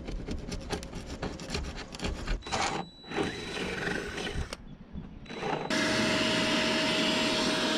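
Rapid clicking of hand tools working the bolts. About six seconds in, a steady, loud whirring noise with one constant tone starts.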